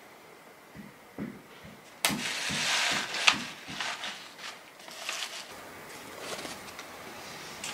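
Paperboard gift box and its paper packing being handled: soft taps, then from about two seconds in a loud crinkling rustle with sharp clicks lasting about a second and a half, followed by lighter rustles and scrapes as the box flaps are folded shut.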